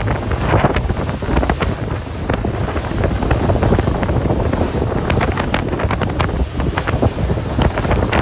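Wind buffeting the microphone in gusts on a moving ferry's open deck, over a low rumble and the rush of the bay's water.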